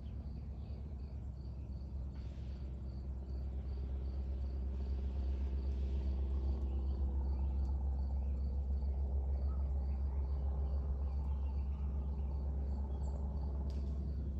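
Low, steady rumble of a jet airliner flying at cruising altitude, growing louder a few seconds in. Over it, an insect chirps steadily about three times a second.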